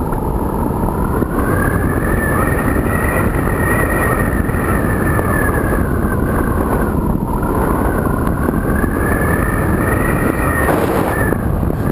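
Multiplex EasyStar RC glider's electric pusher motor and propeller whining, heard from a camera on the plane. The pitch slowly rises and falls twice as the throttle changes, over steady wind rush.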